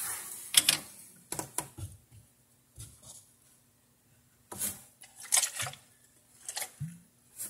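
Plastic bottle of white vinegar being handled: the cap twisted off and the bottle tipped to wet a cloth, giving a scatter of short plastic clicks and crackles with a little liquid splashing.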